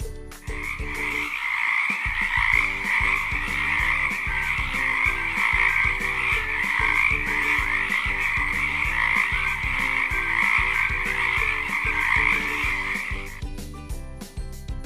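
Frogs croaking in a continuous, unbroken trilling call. It starts just after the beginning and stops suddenly about a second and a half before the end, over a light background music track with a steady beat.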